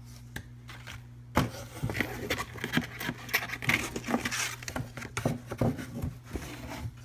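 Hands rummaging in a cardboard box: paper and card rustling and crinkling, with many small taps and knocks, starting about a second and a half in.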